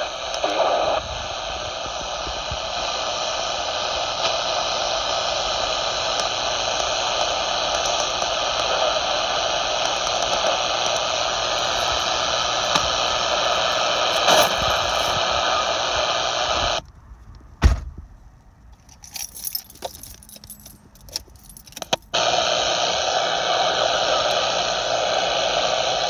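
Steady static hiss from a Luiton LT-298 CB radio's speaker with the squelch open, with no station coming through. About two-thirds of the way in it cuts out sharply for about five seconds, with a few clicks, then comes back.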